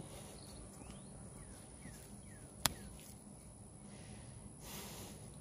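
Faint bird chirps, a few short falling notes, over quiet background noise, with a single sharp click about halfway through and a brief soft hiss near the end.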